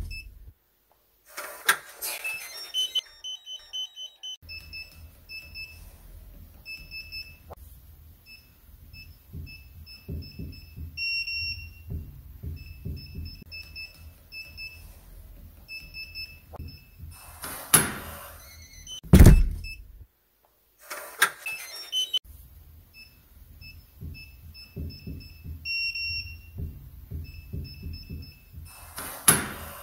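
Digital front-door lock: runs of short electronic keypad beeps as the code is pressed, broken several times by loud clicks and clunks of the lock mechanism and the door. A low steady hum sits underneath.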